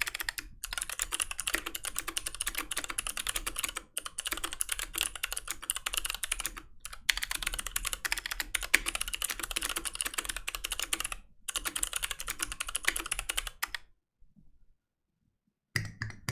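Fast continuous typing on a Fox Orange80 custom mechanical keyboard, a rapid stream of key clicks broken by a few brief pauses. The typing stops about three seconds before the end, followed by a moment of near silence. Percussive music starts in the last half second.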